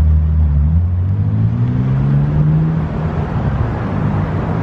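Motor vehicle engine accelerating on the road alongside: a low engine note holds steady for about a second, rises in pitch over the next two seconds, then levels off.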